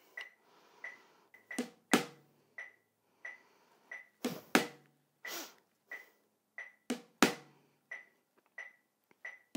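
Snare drum double strokes played with wooden sticks against a metronome. The metronome beeps about every two-thirds of a second, and every fourth beep a pair of strokes lands on the snare, the louder second stroke falling on the beep.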